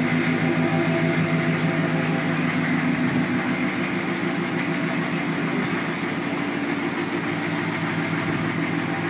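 Lifted Dodge Ram pickup's engine running steadily at idle, a little quieter from about four seconds in.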